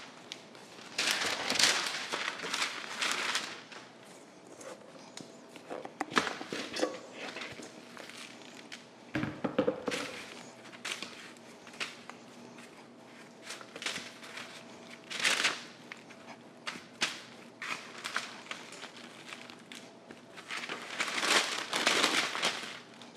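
Parchment paper crinkling and rustling on a metal sheet pan as scone dough is pressed and folded over by hand on it, in several bursts with small clicks between.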